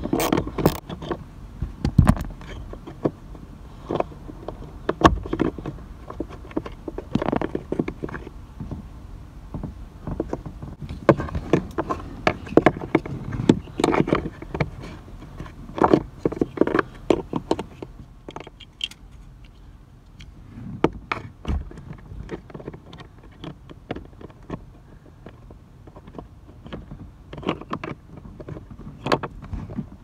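Irregular clicks, taps and plastic rattles of hand-tool work on a blower motor resistor in its plastic HVAC housing, as the small mounting screws are turned out and the resistor is pulled and swapped. Busiest around the middle, sparser later.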